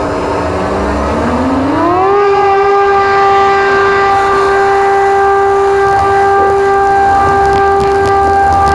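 Aircraft engine spooling up for the takeoff run: a whine rises smoothly in pitch for about two seconds, then holds one steady high tone over a rushing rumble.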